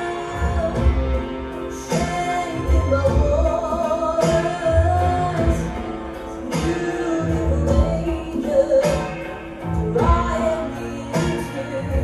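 A woman singing a melody over stage backing music with a pulsing low beat.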